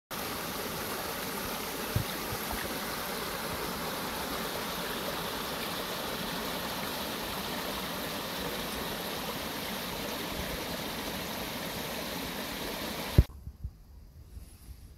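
A shallow rocky stream running over small rapids: a steady rush of water that cuts off suddenly with a sharp click near the end, followed by a few faint ticks.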